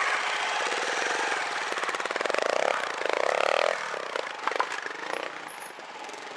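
Trials motorcycle engine running with quick throttle blips: two short revs, rising and falling, in the middle, a couple of sharp knocks just after, then quieter running.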